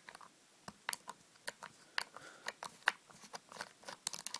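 An Allen key undoing a small screw on the underside of a G&G MP5A4 airsoft gun to free the sight unit, with the gun being handled: a run of light, irregular clicks and ticks, a few a second.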